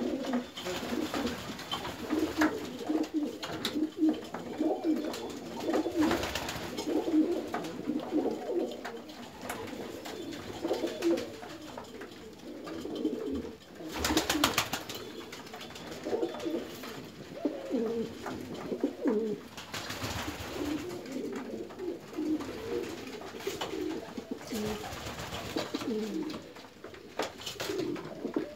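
Domestic pigeons cooing, several at once and overlapping. About halfway through, a quick burst of wingbeats as one pigeon flies up.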